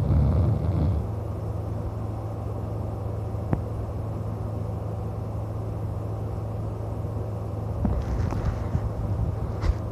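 A man snoring in his sleep, two snores about eight seconds apart, one at the start and one near the end, over a steady low hum. A short click comes about three and a half seconds in.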